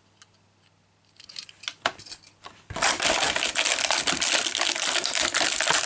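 A few light plastic clicks, then about three seconds in a loud, continuous crackling and rattling of a thin plastic blister tray as 1:64 diecast cars are moved in and out of its slots.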